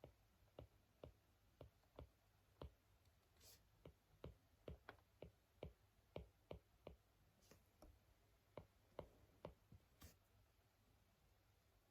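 Faint, irregular light clicks, about two a second, with three brief high hisses in between.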